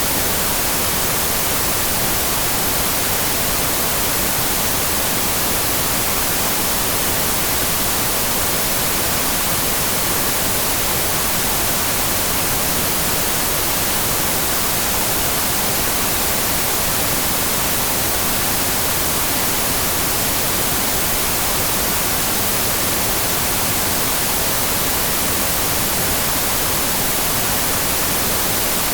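Static from an analog TV set with no signal: a steady, even hiss, brightest in the high end, unchanging throughout.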